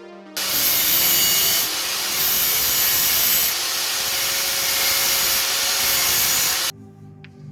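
Power tool grinding steadily through metal, with a faint steady hum under the noise; it starts suddenly and cuts off after about six seconds. This is the airsoft motor shaft being cut down to a custom length.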